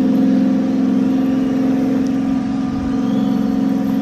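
A boat's inboard engine running steadily close by: a low, even drone with a fast pulsing throb, over the wash of choppy wake water.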